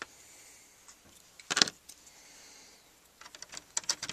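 Plastic LEGO bricks and minifigures clicking and clattering as they are handled and set in place on a baseplate: a short clatter about one and a half seconds in, then a quick run of small clicks near the end.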